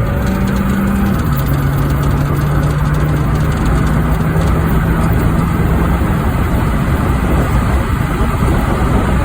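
Honda Fit's engine running steadily over a low rumble, its note dropping in pitch about a second in.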